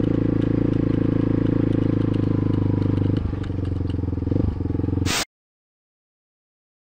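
Suzuki DR350 SE's single-cylinder four-stroke engine running under way, its note changing and dropping about three seconds in. About five seconds in the sound cuts off suddenly to dead silence as the recording camera's battery dies.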